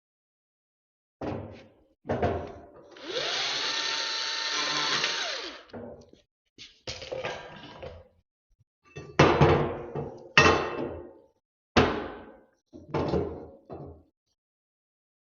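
A power tool runs for a couple of seconds, its pitch rising and then falling back as it spins up and winds down. This is followed by four sharp metal clanks with ringing tails, the loudest sounds here, as steel pieces are knocked and set down.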